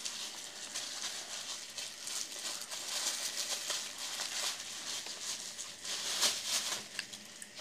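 Plastic bubble wrap crinkling and rustling in the hands as the pouch is opened and a small bar is worked out of it. The crackling eases off near the end.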